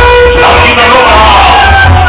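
Loud dance music played over a sonido sound system, with a pulsing bass beat and a long held note near the start.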